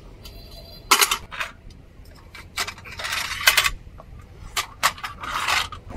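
Steel towing gear, a tow bar and wheel dollies, being handled and set under a car: a run of sharp metal clanks and rattles, with two longer scraping rattles, one around the middle and one near the end.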